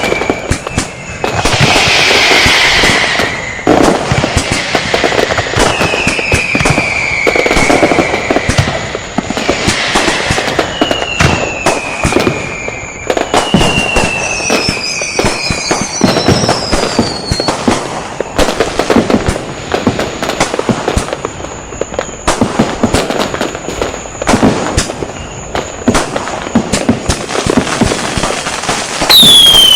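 Firecrackers and fireworks going off in a rapid, dense barrage of bangs and crackles, with several whistles falling in pitch, a cluster of higher whistles about halfway through, and a loud whistle near the end.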